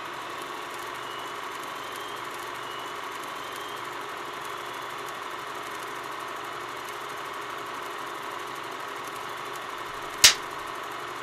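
Film projector running steadily, a continuous mechanical whir with a steady hum in it. A single sharp clapperboard snap about ten seconds in.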